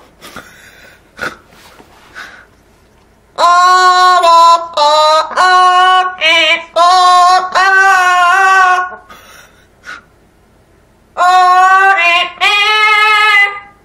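Amazon parrot singing a wordless tune of held, wavering notes in two phrases, the second starting about eleven seconds in, with a few faint clicks before the first.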